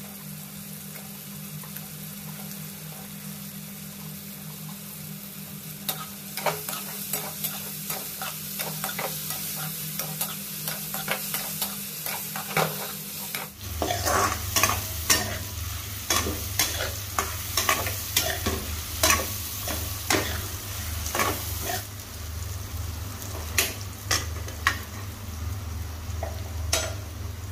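Chicken sausages and tomato-onion masala sizzling in a frying pan while a metal spoon stirs them, scraping and clicking against the pan. The spoon clicks start about six seconds in and come thick and fast in the second half.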